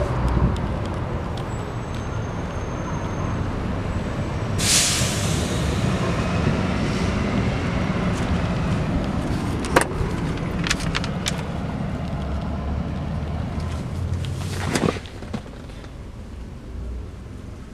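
Steady low car rumble with a short loud hiss about five seconds in and a sharp click near ten seconds. About fifteen seconds in a car door shuts and the sound drops to a quieter, muffled level inside the cabin.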